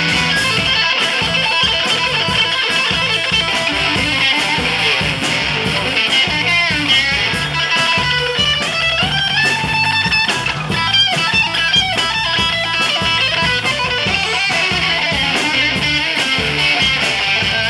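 Live rock band playing an instrumental break: electric guitar over bass and drums. The guitar lines slide and bend in pitch through the middle of the passage.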